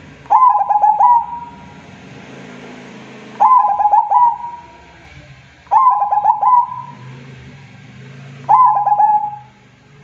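Zebra dove (perkutut) cooing: four phrases, each a quick run of stuttering coos lasting about a second, repeated every two to three seconds.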